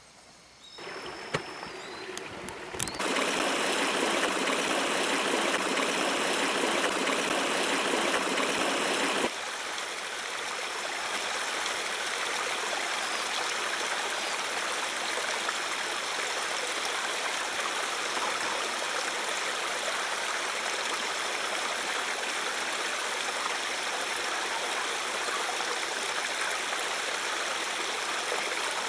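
River water running steadily. A louder stretch of the rush starts about three seconds in and cuts off suddenly some six seconds later, after which the flow goes on evenly.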